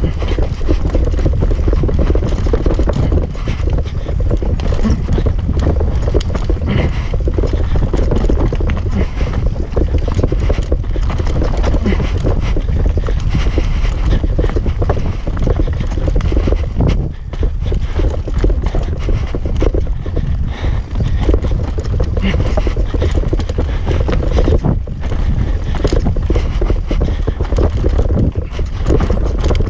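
Mountain bike, a Norco Range, ridden fast down a dirt trail and heard through a GoPro. Wind rumbles on the microphone while the tyres rip through loose dirt, and the chain, frame and suspension rattle and clatter over roots and rocks.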